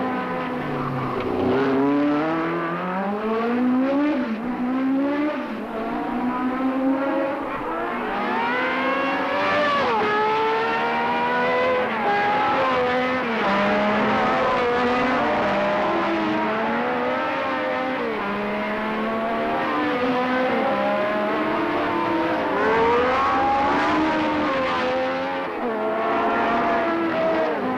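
Several 1970s Formula One race car engines running at high revs, their pitch repeatedly climbing and dropping sharply through gear changes, with more than one car heard at once.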